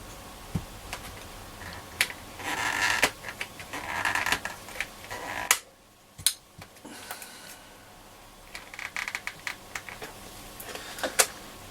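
Plastic control knobs and trim being pulled off a Roberts R707 transistor radio: short scraping rubs and sharp plastic clicks, spread irregularly through the stretch.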